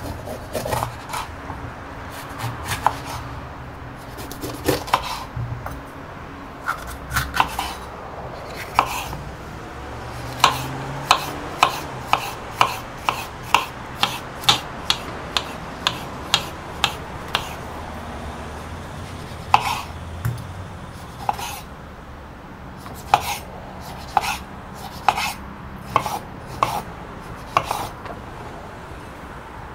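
Kitchen knife chopping bell peppers and a tomato on a bamboo cutting board, the blade knocking sharply on the wood at each cut. In the middle it settles into a steady run of about two strokes a second.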